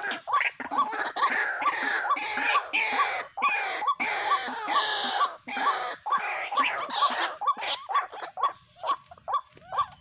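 White-breasted waterhens calling: a steady run of short notes, about two a second, over a busy chorus of other calls that thins out near the end.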